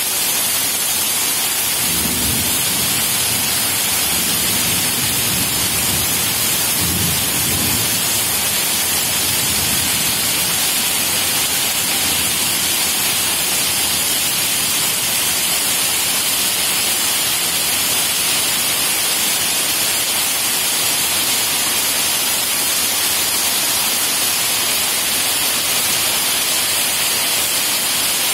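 Heavy rain pouring steadily on trees and roofs, a dense, even hiss. Low rumbles come in about two seconds in and again around seven seconds.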